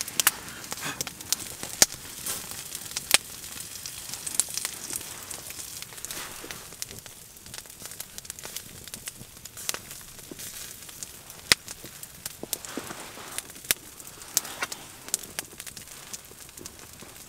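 Open wood fire crackling, with irregular sharp pops scattered over a low steady hiss.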